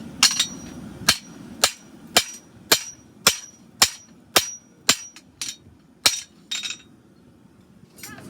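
Farrier's hammer striking a hot steel horseshoe bar on the anvil, forging the shoe by hand: about a dozen blows, roughly two a second, several with a short high ring, stopping shortly before the end.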